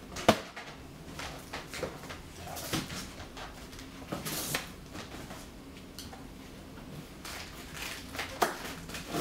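Cardboard box flaps being pulled open and folded back: scraping and rustling of cardboard with scattered knocks, the sharpest just after the start and a longer swish about four seconds in.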